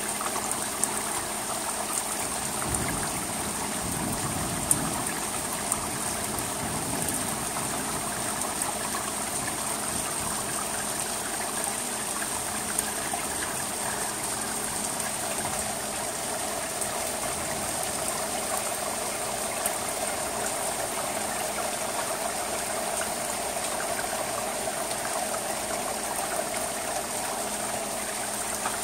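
Steady rain falling on an asphalt-shingle roof, with water trickling and running off into the gutter. A few sharp single taps stand out, scattered through the rain.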